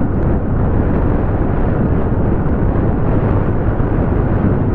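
Steady low rush of wind buffeting the microphone while riding a Yamaha Ray ZR 125 scooter, mixed with road noise.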